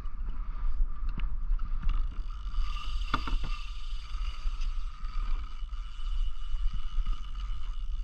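Water and wind rumbling against a small plastic kayak on open ocean chop, with a faint steady whine and a few sharp clicks, the loudest about three seconds in.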